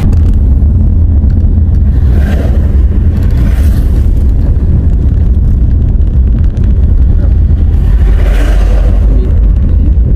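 Car driving along a paved road, heard from inside: a loud, steady low rumble of road and wind noise. A hiss swells briefly about two seconds in and again about eight seconds in, the second as an oncoming truck passes.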